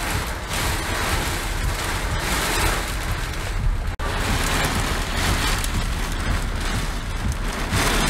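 Derecho storm: torrential rain pounding and hissing, with strong gusting wind buffeting in a heavy low rumble. The sound drops out for an instant about halfway through.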